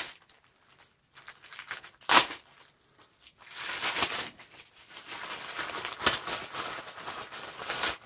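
Packaging being opened by hand: a sharp tap about two seconds in, then several seconds of crinkling and rustling full of small clicks.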